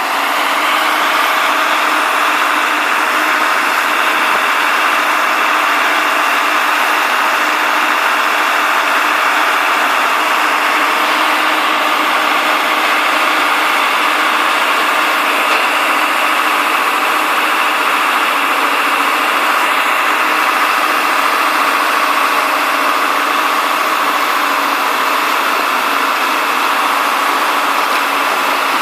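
Integrated DTH surface drill rig's 191 kW diesel engine and machinery running steadily at a constant level.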